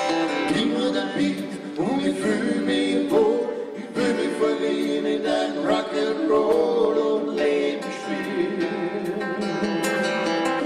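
Live band music: a male voice sings over guitar and drums, the sung line strongest in the first three-quarters.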